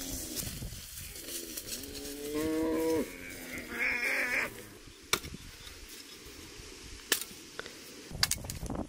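A cow mooing once, one long call of about a second and a half, followed by a shorter, higher call. In the second half come a few sharp knocks of wood as branches are handled on a woodpile.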